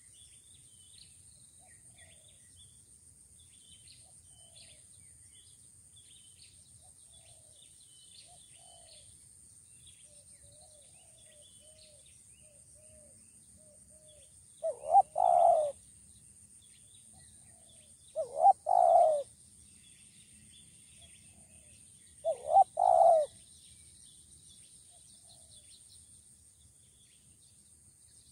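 Spotted dove cooing: three loud phrases a few seconds apart starting about halfway in, each two short notes followed by a longer one. Faint small-bird chirps sound throughout.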